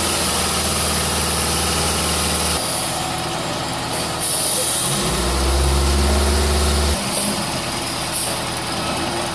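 A heavy truck's diesel engine runs under load. Its note shifts about two and a half seconds in and grows louder for a couple of seconds from about five seconds in, over a steady high hiss.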